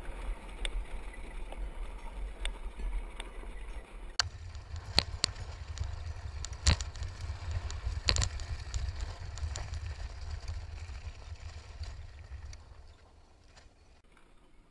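Low rumble of wind buffeting an action camera's microphone, with scattered sharp knocks and rattles. The rumble steps up about four seconds in and dies away near the end.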